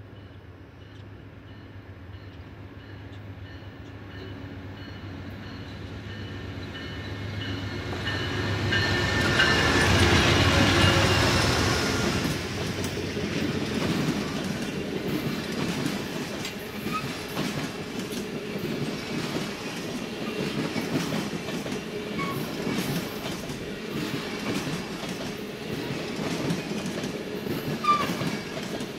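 Amtrak Auto Train passing at speed. The GE P42 diesel locomotive's engine grows louder as it approaches and is loudest about ten seconds in as it goes by. Then a long string of bilevel passenger cars rolls past with a steady clickety-clack of wheels over the rail joints and a few short squeaks.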